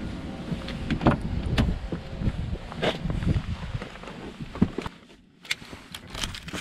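Someone getting into a Volkswagen Beetle: the car door is opened, there is shuffling with a series of knocks and clicks, then the door shuts with a sharp knock about four and a half seconds in and the sound goes suddenly quiet and closed-in. Near the end, keys click as the key is put into the ignition.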